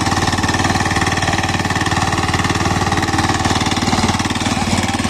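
Kohler Lombardini four-stroke diesel engine of a walk-behind rotary power weeder running steadily under load with a rapid, even knocking beat, as its rear rotary tines till dry soil.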